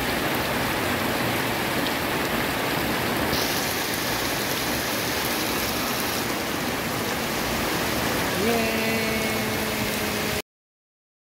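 Heavy tropical rain pouring steadily onto a wet road and foliage, a dense even hiss. About two seconds before the end a steady pitched tone joins it, then all sound cuts off suddenly.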